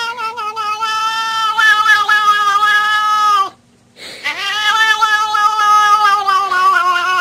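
A pet howling with its head thrown back: two long, drawn-out, steady calls, a little falling in pitch. The first breaks off about three and a half seconds in, and the second starts about half a second later.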